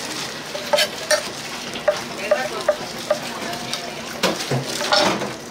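Gopchang (intestines) stir-frying on a hot griddle: a steady sizzle, with sharp metal clicks and scrapes from the stirring several times.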